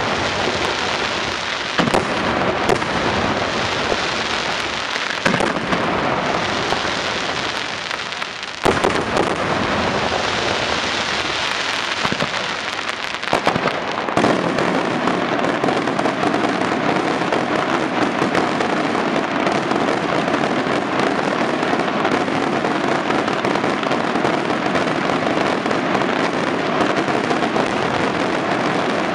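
Daytime fireworks barrage: a continuous dense crackling packed with sharp bangs. About halfway through it turns denser and steadier.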